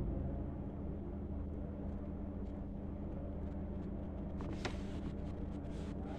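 Ballpoint pen scratching faintly on paper as a line of text is written, over a steady low hum, with a couple of light taps about four and a half seconds in.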